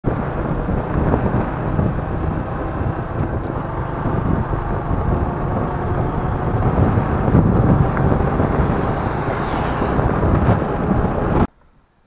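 Wind buffeting the microphone on a moving motorcycle, mixed with road and engine noise; loud and steady, cutting off abruptly about half a second before the end.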